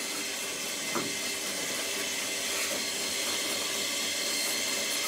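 Motor-driven shutter of a small telescope dome sliding open: a steady, hissy whir, with a single click about a second in.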